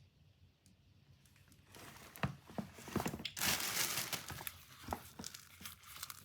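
Fabric tool bag being handled: rustling and crinkling with small clicks and knocks. It begins about two seconds in, with a louder stretch of rubbing about three and a half seconds in.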